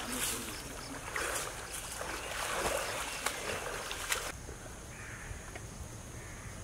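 Splashing of a man swimming in a river, his arm strokes churning and slapping the water. About four seconds in the splashing stops and a quieter, steady background is left.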